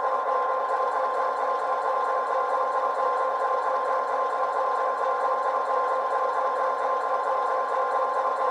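Simulated EMD diesel prime mover of a GP9 locomotive, played by a Loksound v5 sound decoder through two tiny sugar cube speakers, running steadily with an even, unchanging tone.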